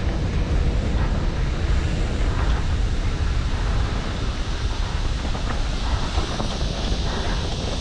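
Wind rushing over a helmet-mounted camera's microphone as a mountain bike descends a dirt trail at speed, with a steady low rumble and a few faint knocks from the bike over the rough ground.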